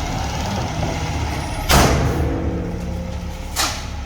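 Dump truck engine running steadily. About two seconds in comes a sharp hiss of released brake air, and a shorter one comes near the end.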